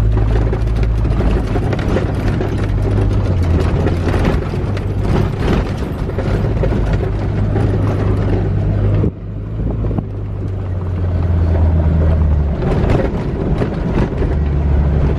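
Jeep Wrangler JK engine running with a steady low drone while driving a dirt trail, with rattling and tyre noise over it. About nine seconds in the sound briefly drops out, then the engine drone picks up again.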